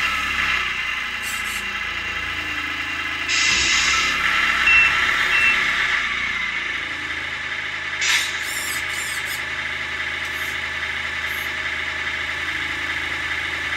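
Simulated diesel truck engine from the Tamiya MFC-01 sound unit idling steadily through the RC truck's small speaker. Two short air-brake hisses cut in, about three and a half and eight seconds in.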